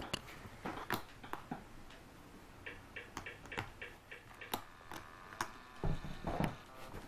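A puppy chewing and chomping, with irregular clicks of its teeth and jaws. A louder bump and rustle comes about six seconds in.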